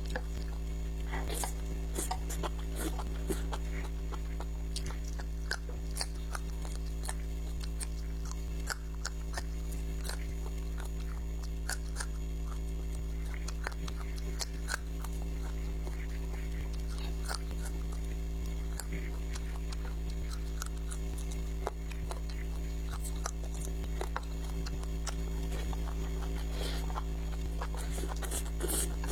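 Close-miked chewing and biting into food, a run of short irregular wet clicks and crunches, over a steady low electrical hum.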